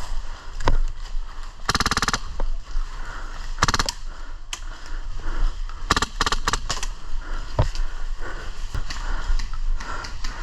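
Airsoft guns firing short rapid bursts of BBs, three runs of quick sharp shots with a few single shots between them.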